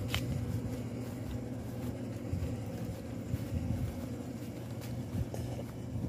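Low, uneven wind rumble on the microphone, with one sharp click right at the start.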